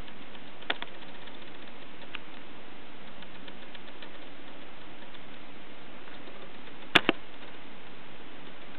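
Camera handling noise: a steady hiss with a few faint clicks, then a sharp double click about seven seconds in.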